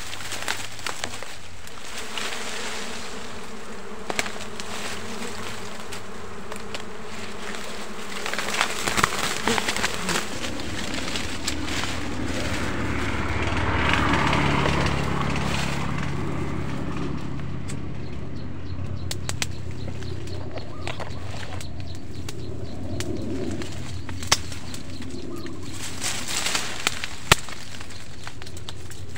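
Honey bees buzzing in a steady, massed hum around a wild comb being handled. Leaves and twigs rustle and snap now and then, in a cluster about eight to ten seconds in and again near the end. The hum swells for a few seconds midway.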